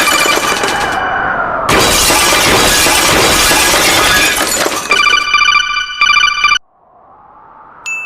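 Loud crashing, shattering noise for about five seconds, broken once by a short gap, then a quick jangle of ringing bell-like tones that cuts off suddenly. A soft whooshing swell follows, and a single chime rings near the end.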